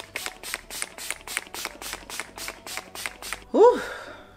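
Urban Decay All Nighter setting spray pumped in quick hissing spritzes, about four a second, which stop a little after three seconds in. Near the end comes a short voice sound that rises and falls in pitch.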